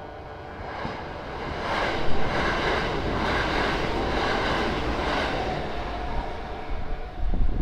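Kintetsu train passing over a level crossing: its running noise builds about a second in, is loudest through the middle with a sharp clank about two seconds in, and fades near the end. The crossing bell's ringing is heard at the start and again near the end.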